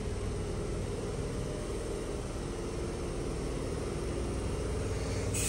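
Steady hum of a double-deck electric train standing at the platform, its onboard equipment running, with a few faint steady tones in the hum.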